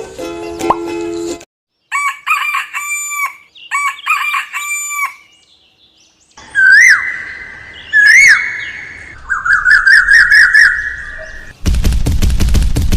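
Chicken and rooster calls: short clucking bursts, then two loud rising-and-falling calls and a warbling cluck. Near the end a fast, even crackling rattle starts.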